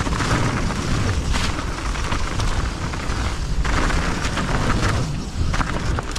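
Mountain bike riding down a trail over slippery roots under fallen leaves: steady wind rumble on the microphone, with repeated knocks and rattles of the bike as it goes over the roots.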